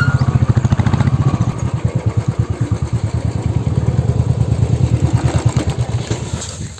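An engine running with a rapid, even low pulsing that fades away near the end.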